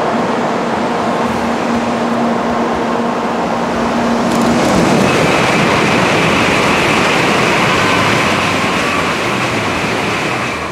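Tokaido Shinkansen train passing through the station at high speed: a loud, steady rush, with a tone that drops in pitch about four and a half seconds in as the train goes by.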